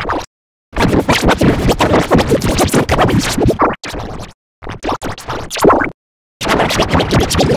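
Electronically warped, music-like audio, chopped and stuttering, that cuts out abruptly three times.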